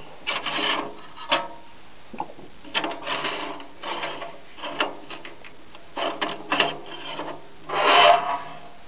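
A postcard being loaded into a postcard projector: the card and its sheet-metal holder scraping and rubbing in a run of short rasps, with a few sharp clicks of the metal parts. The longest and loudest scrape comes near the end as the holder is pushed in.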